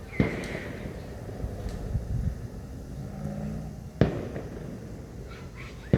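Fireworks going off: three sharp bangs, one just after the start, one about four seconds in and one at the very end.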